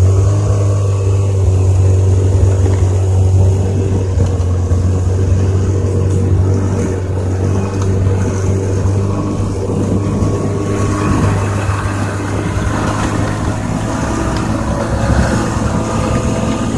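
Snowmobile engine running steadily under way with a strong low drone, having just revved up to pull away.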